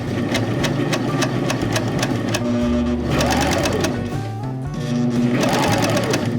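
Juki MO-1000 serger (overlock machine) running and stitching, over background music with a steady beat.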